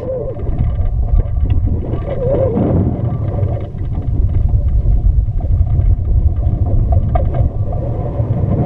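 Wind rushing and buffeting over a rocket's onboard camera as it descends: a loud, uneven low rumble, with a brief wavering whistle at the start and again about two and a half seconds in.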